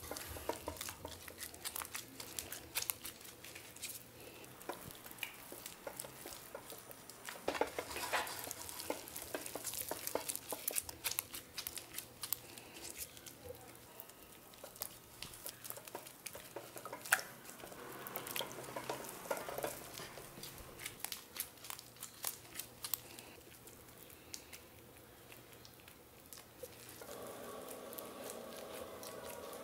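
Gloved hands squeezing and kneading sticky minced pork meatball paste: a dense run of small wet squelches and crackles, busiest in two spells. Near the end a steady hum comes in.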